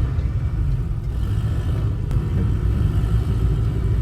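Steady low road and engine rumble inside the cabin of a moving Honda City car.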